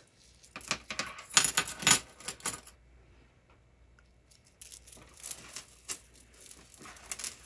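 Wood and plastic beads of a wraparound bracelet clicking and rattling against each other as it is handled. The clicking stops for about two seconds midway, then starts again.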